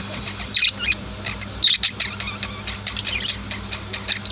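Pet budgies and lovebirds chirping in short, high clusters about a second apart, over a faint steady low hum.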